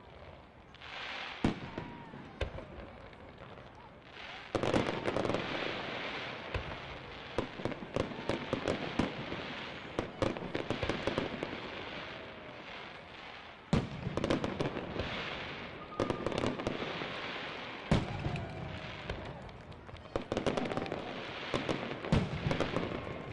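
Fireworks going off: several sharp booms of bursting shells, the loudest about a second and a half in, about four and a half seconds in, near fourteen seconds and near eighteen seconds, with long stretches of dense crackling and popping between them.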